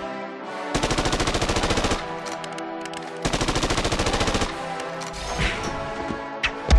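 Two bursts of automatic rifle fire, each lasting about a second, with background music underneath. A couple of heavy thuds come near the end.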